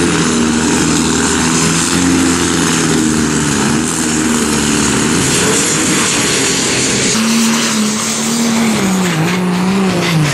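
Modified pulling tractor's engine running loud and steady at high revs under load as it drags the weight sled. About seven seconds in, the engine note shifts, and near the end its pitch falls away.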